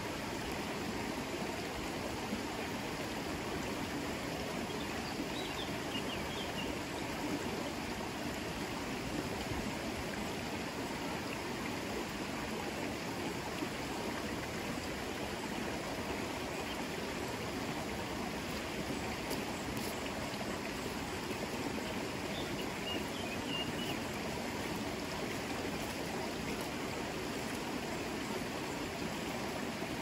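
River water flowing, a steady rush of moving water.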